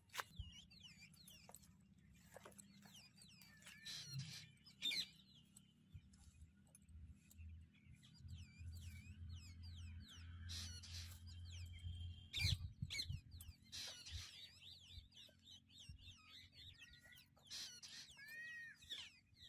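Small birds chirping over and over, with quick rising and falling calls, above a low rumble. Scattered rustles and sharp clicks come from green fodder being cut and gathered by hand, the loudest about twelve seconds in.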